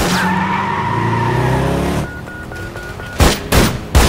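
Car engine and tyre noise with a slightly falling pitch, then a quick run of five short electronic beeps. In the last second a few loud gunshots come in quick succession.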